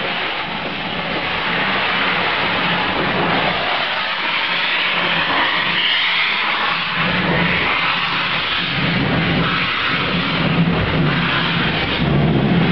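Steam locomotive pulling away at close range: loud, continuous hissing of steam from around its cylinders, with low pulsing beats that grow stronger in the second half.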